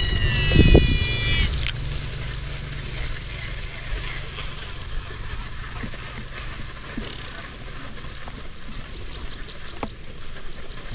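Baitcasting reel during a cast: a brief high whine from the spinning spool that slides down in pitch and stops after about a second and a half, with a loud low thump at the same time. After that, faint regular ticking, about three a second, over a steady low rumble.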